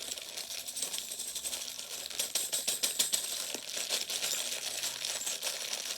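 Small metal jingle bells jingling and clinking, loud, as a handful is shaken and put in, a dense patter of rapid metallic clicks and rings.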